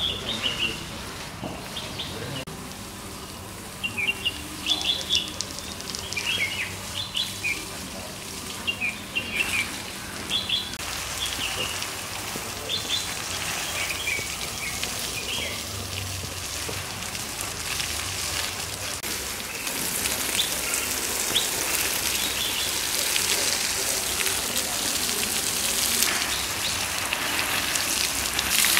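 Birds chirping in short, repeated calls through the first half. From about midway, a garden hose spray nozzle hisses, with water pattering on leaves and soil, growing louder toward the end.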